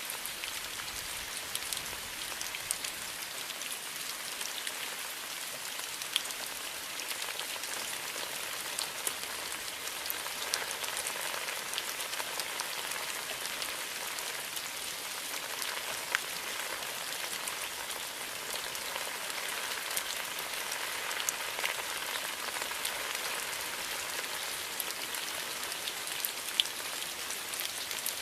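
Steady rain falling in a bamboo grove, an even hiss with single drops ticking sharply now and then.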